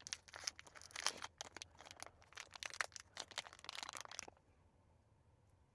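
Plastic wrapper of a coconut wafer snack crinkling and tearing as it is opened, a run of irregular crackles that stops about four seconds in.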